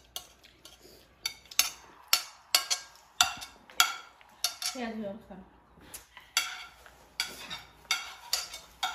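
Forks clinking and scraping against plates as people eat noodles, in irregular sharp taps about two or three a second. A brief voice sounds about five seconds in.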